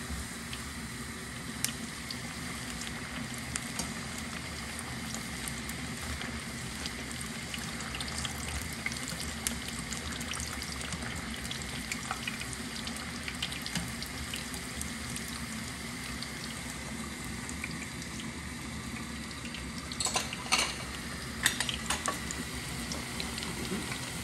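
A bhatura deep-frying in a pan of hot oil: a steady sizzle with scattered crackles, and a few louder pops about twenty seconds in.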